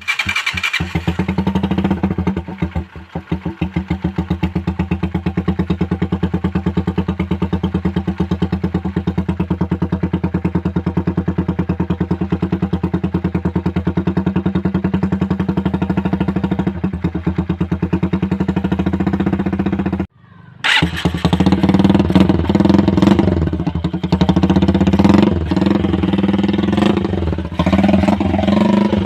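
Honda Wave 110R's small single-cylinder four-stroke engine idling through an aftermarket NLK conical-type exhaust, with a steady, even putter. After a short break about two-thirds of the way in, the engine is revved repeatedly and runs louder.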